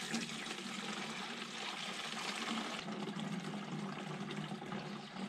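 Liquid pouring and splashing steadily through a motorcycle fuel tank being cleaned out, with a faint steady hum underneath.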